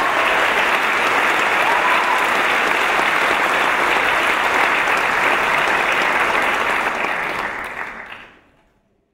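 Theatre audience applauding steadily at the close of a stage act, fading away over the last two seconds.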